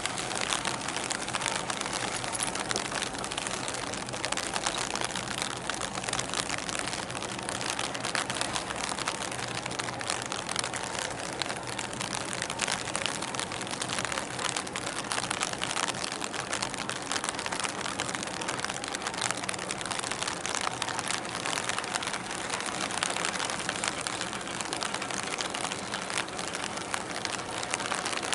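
Steady outdoor noise: a dense hiss with fine crackle throughout and a faint low hum underneath.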